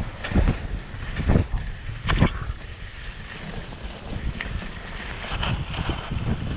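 Wind rushing over a helmet-mounted action camera's microphone while skiing down a groomed run, with skis scraping the snow in about three short swishes during the first couple of seconds.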